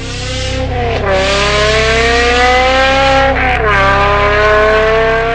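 Car engine accelerating hard through the gears: its pitch climbs, drops at a shift about a second in and again about three and a half seconds in, then climbs again. Background music plays underneath.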